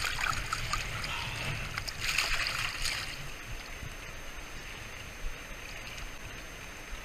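Water splashing in and around a landing net as a caught fish is handled in the river, over the steady rush of flowing current. The splashing is loudest near the start and again about two seconds in, then settles to the even sound of the water.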